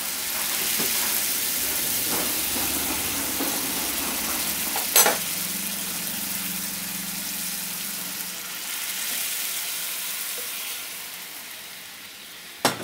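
Boiled moong dal poured into a kadai of hot mustard-oil tempering, hissing and sizzling loudly at first and slowly dying down as it settles to a bubble. A sharp knock sounds about five seconds in, and another near the end.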